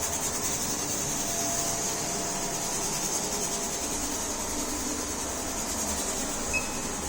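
Steady kitchen noise: an even, unbroken hiss with a low hum beneath it.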